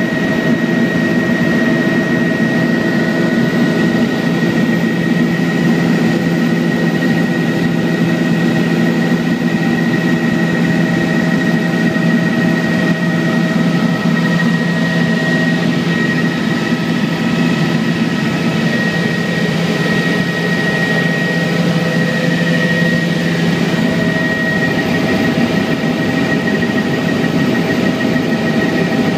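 Helicopter in flight, heard from inside the cabin: a loud, steady drone with a constant thin whine over it.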